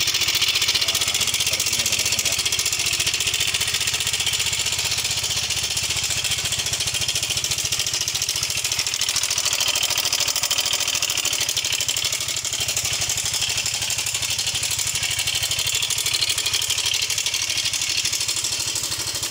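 Yamaha Mio M3 125 scooter engine idling steadily with a rough, harsh mechanical noise: the fault being diagnosed.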